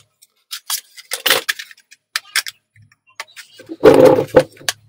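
Plastic retail packaging of RAM sticks being handled and opened: a scattered series of clicks and crackles, with a louder crackling burst nearly four seconds in.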